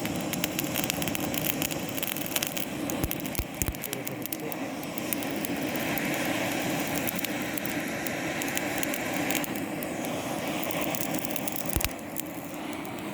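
Charcoal grill crackling and hissing steadily with many small pops, and a few dull knocks.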